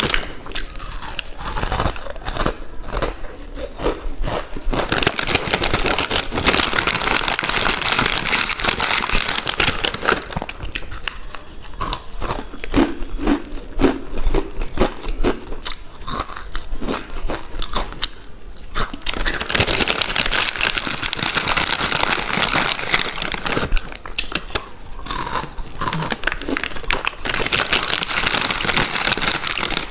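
Close-up crunching and chewing of crisp Balaji chips, with plastic snack packets crinkling.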